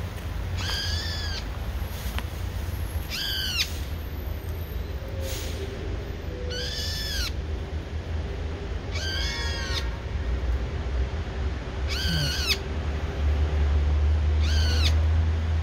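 Brown-eared bulbul calling: six short, arched calls, each with several stacked tones, spaced about two and a half seconds apart.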